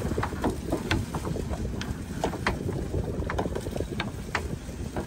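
Small fishing boat out on the water: a steady low rumble with frequent, irregular sharp knocks.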